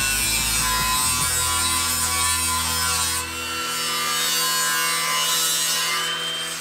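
Cordless angle grinder grinding the sheet-steel edge of a car's tail light panel, a steady high grinding noise that dips briefly about three seconds in.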